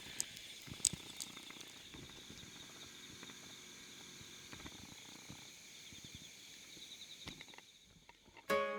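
Insects, crickets, trilling steadily in a high, finely pulsing chorus, with a couple of light clicks in the first second. Near the end a strummed ukulele chord comes in.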